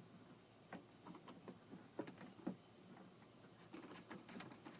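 Faint, irregular clicks and light taps as the screws of a car door handle are driven in by hand, with a small cluster of clicks near the end.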